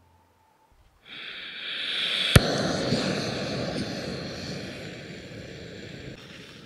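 Small canister backpacking stove being lit: gas starts hissing about a second in, a single sharp igniter click follows a little over a second later, then the burner runs with a steady roar under the pot, easing slightly near the end.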